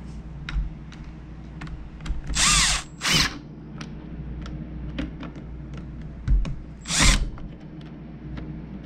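Power drill-driver with a T25 Torx bit whirring in short runs as it drives in the screws that fasten a chainsaw's carburetor: two quick runs about two and a half seconds in and a third about seven seconds in, with small clicks of tool handling in between.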